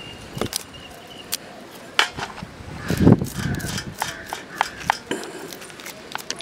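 A knife blade scraping scales off a small fish on a plastic cutting board: sharp, irregular scraping clicks, some in quick runs, with one louder dull knock about halfway through.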